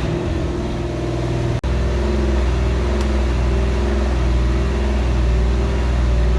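A steady low mechanical drone with a humming pitch, cut off for an instant about one and a half seconds in.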